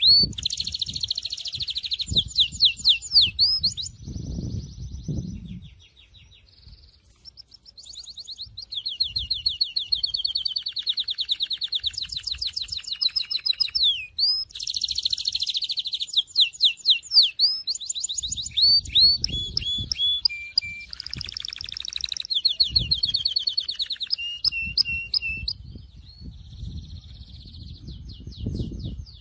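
Syrian canary singing a long, fast song of rapid trills and rolling repeated-note phrases, switching to a new phrase every second or two, with a short quieter break about six seconds in.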